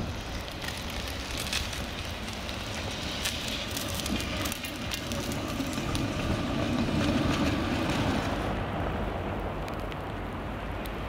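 Articulated tram running past close by on snow-covered track, a low rumble of wheels and running gear that swells to its loudest about two-thirds of the way through, then eases off.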